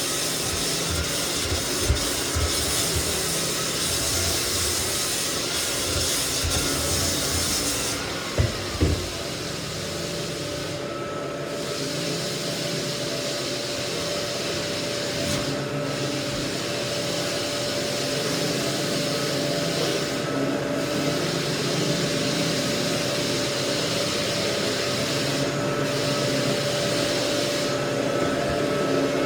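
Lagler Flip belt floor sander running on white oak flooring, with its dust-fan whine and the steady rasp of abrasive on wood. About eight seconds in the high hiss drops away, a couple of short knocks sound, and a steady whine carries on.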